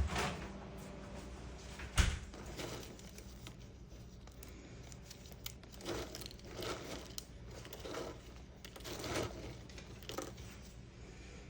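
Handling noises: a sharp knock about two seconds in, then a string of soft, short rustles.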